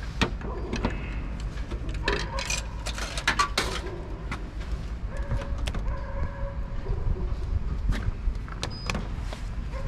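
Coins inserted one after another into a coffee vending machine's coin slot, clinking and clattering down through the coin mechanism, followed near the end by clicks of a selection button being pressed and a short high beep from the machine.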